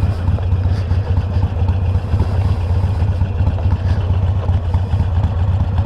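Harley-Davidson Iron 883's air-cooled V-twin engine running steadily, with heavy wind buffeting the helmet microphone.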